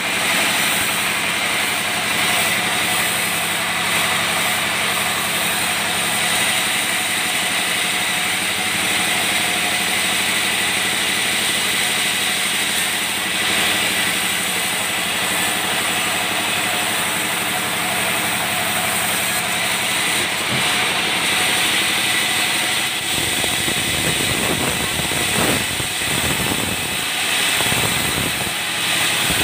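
Sawmill band saw running steadily, powered by its stationary engine, while a balsa log is fed into the blade: a constant mechanical din with a high steady whine. In the last few seconds the low rumble grows louder and uneven.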